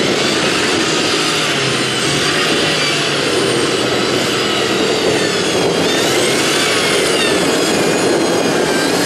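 Formula Offroad hillclimb car's engine running loud at high revs. Its pitch rises and falls several times, with one long rise and fall a little past the middle.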